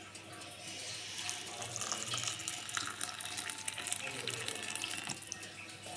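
Just-boiled water being poured steadily into a glass over cloves and thyme, steeping them for a cough remedy.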